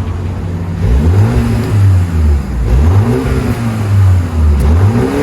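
2026 MINI Countryman JCW's turbocharged four-cylinder engine revving, its pitch climbing and falling back three times.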